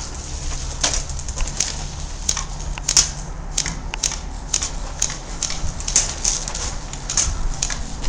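Footsteps crunching on rough, gritty ground at a walking pace, about one step every two-thirds of a second, with light rustle and rattle in between.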